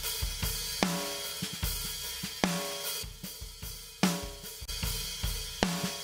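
Acoustic rock drum kit playing a steady beat of kick, snare, hi-hat and cymbals, heard through a heavily limited parallel drum compression channel that pushes the kick and snare attack forward and ducks the cymbals. A loud hit with a short pitched ring comes about every second and a half.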